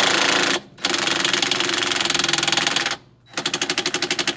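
Cordless impact wrench with a 13 mm socket hammering on a Whirlpool washer's drive-pulley nut, in three bursts: a short one, a long one, and a last, choppier rattle near the end.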